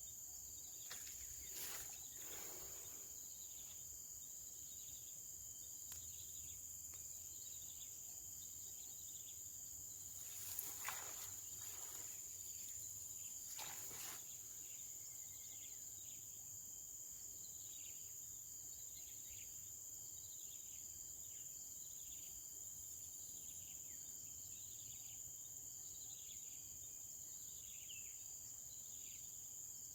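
Steady high-pitched drone of insects, with short falling chirps repeated about once a second through the second half. A few brief rustles or knocks come near the start and around the middle, the loudest two close together.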